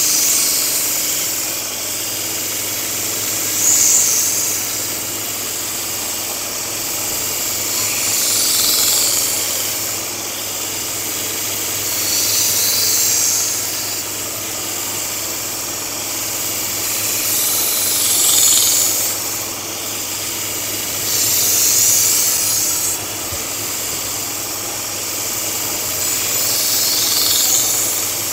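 A 2x42 belt grinder running steadily with a 240-grit silicon carbide belt while a knife edge is sharpened against it. About seven passes of the blade, each a few seconds apart, bring a brief loud grinding hiss over the motor's hum.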